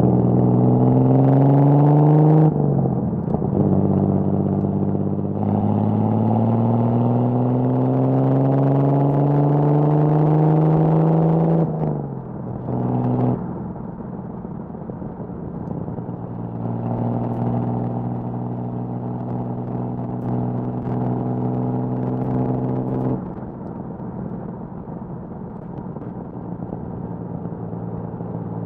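1979 Datsun 280ZX's L28 inline-six, running on triple Weber carburettors through an HKS Hi-Power exhaust, accelerating with a rising pitch. There is a break about two and a half seconds in, then a second long pull that ends about twelve seconds in with a drop and a short blip. After that the car cruises at a steadier, lower and quieter note.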